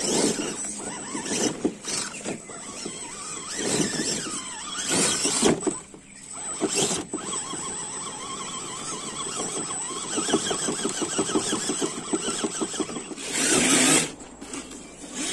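Electric scale RC crawler's motor and gears whining as it climbs a rocky dirt trail, with scrapes and knocks from the tyres and chassis on the stones and soil, and a louder rush near the end.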